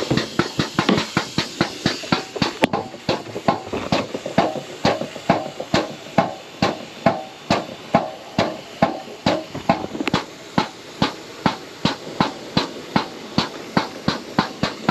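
Pump transferring calcium chloride ballast into a tractor tire, clacking in an even rhythm of about two and a half strokes a second with a hiss between strokes.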